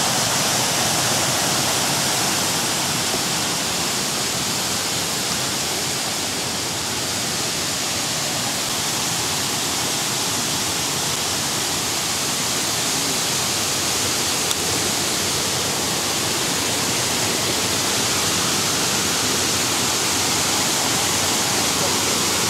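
Steady, unbroken rush of a waterfall.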